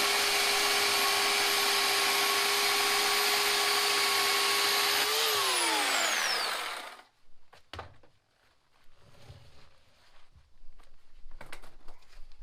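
Bauer 14.5-amp corded electric chainsaw running at a steady high-pitched whine. About five seconds in the trigger is released and the motor winds down, stopping within two seconds. A few light knocks and clicks follow.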